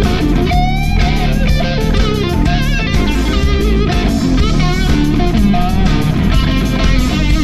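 Live rock instrumental: an electric guitar lead playing wavering, bent notes over drums and bass.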